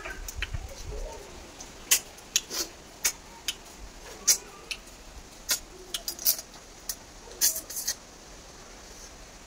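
Eating sounds: irregular short, sharp sucking, smacking and clicking noises, about fifteen in all, as cooked freshwater snails are sucked out of their shells and picked from a steel plate.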